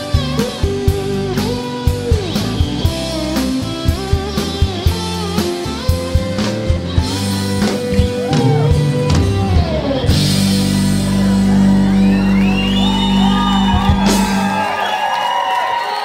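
Rock song with singing, guitar and drum kit. About ten seconds in, the drums stop and a final chord is held. Near the end a crowd cheering and shouting takes over.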